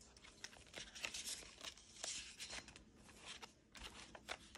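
Paper cards and clear plastic binder pockets being handled: soft rustling and crinkling with scattered light ticks.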